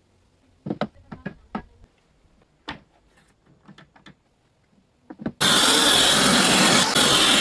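A few scattered knocks and clicks of workpieces being handled, then a power tool starts abruptly about five seconds in and runs steadily and loudly.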